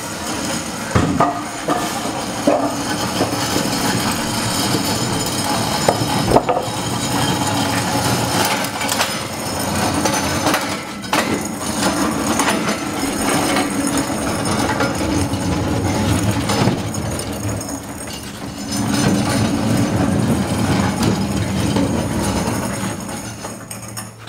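Work noise from handling aircraft sections: knocks and bumps, the loudest about a second and about six seconds in, over a steady low mechanical hum.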